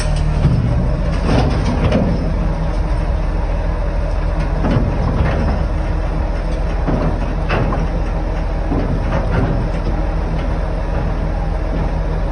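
Large crawler excavator's diesel engine running steadily as the machine creeps along a lowboy trailer deck, with scattered clanks and short squeals from its steel tracks.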